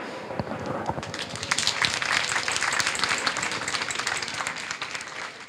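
Audience applauding: many hands clapping, building up over the first second or so and tapering off near the end.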